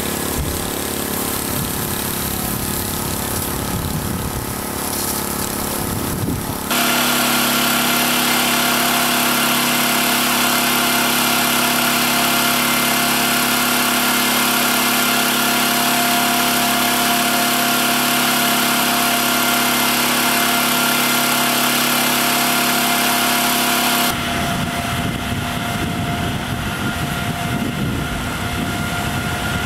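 Fire engine's motor running its pump steadily, a constant mechanical drone with several steady tones. It becomes louder and more hissing abruptly about seven seconds in, then drops back just after twenty-four seconds.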